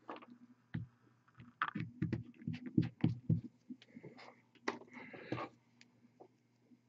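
Irregular short knocks and taps from handling things on a tabletop, coming thick and fast for a couple of seconds, then a few short scrapes, over a faint steady low hum.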